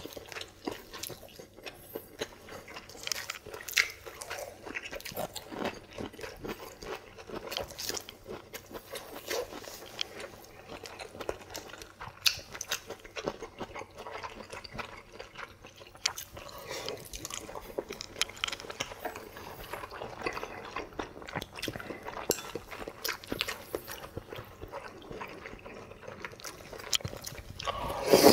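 Two people eating at close range: chewing and biting, with many short clicks scattered through, and a louder burst of eating noise near the end.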